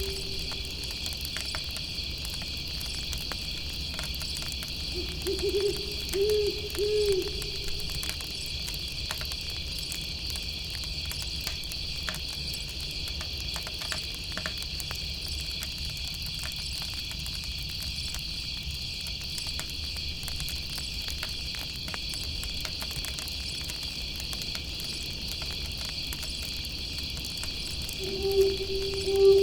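An owl hooting a short run of notes about five seconds in and again near the end, over steady high insect chirring and the scattered crackle of a campfire.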